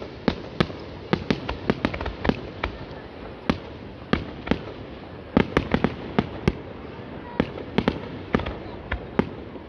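Aerial firework shells bursting overhead: an irregular run of sharp booms, two or three a second, bunching into a quick volley about halfway through.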